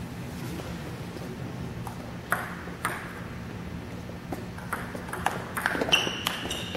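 Table tennis ball clicking off rackets and the table: two single knocks a little over two seconds in, then a quick rally of about a dozen hits and bounces. A short high squeak comes near the end.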